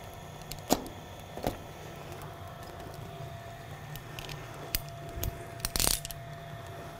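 Sharp mechanical clicks and knocks from a laminator's slitter head being moved and locked on its rail rod, the loudest about a second in, then a quick cluster of clicks and a short rattle near the end. A steady low machine hum runs underneath.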